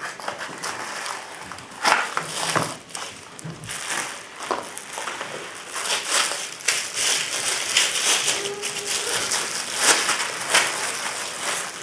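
Clear plastic bag crinkling and crackling as hands handle and unwrap a rifle scope inside it, a dense run of crackles.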